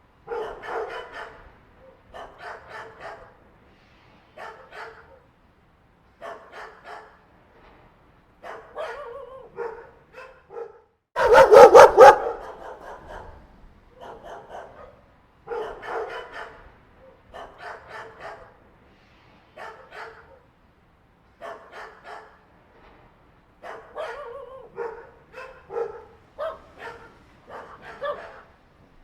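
Dogs barking in short repeated bouts every second or two. One much louder, dense burst of barking comes about eleven seconds in.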